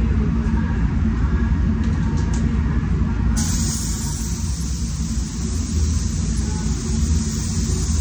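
Steady low rumble of a paint spray booth's ventilation. About three and a half seconds in, a SATA Jet 5000 RP spray gun is triggered and adds a steady hiss of compressed air and atomised paint.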